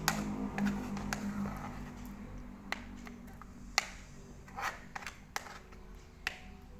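Slime mixture being stirred in a container: scattered clicks, taps and short scrapes of the stirrer against the container, a handful over several seconds.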